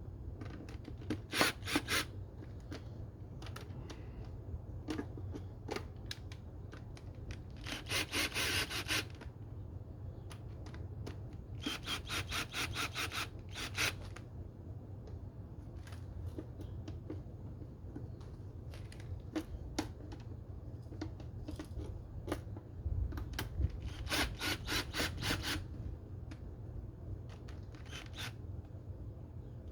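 Hand ratchet clicking in short quick runs, several times over, as the intake's mounting screws are turned.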